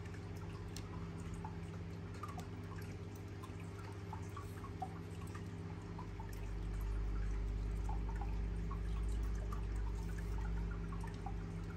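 Faint water dripping and trickling, small scattered drips over a steady electrical hum. A low rumble swells about halfway through and fades near the end.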